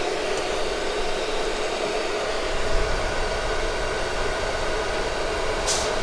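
Diesel heater's hot-air blower fan running steadily at high speed: a constant rush of air with a faint steady whine.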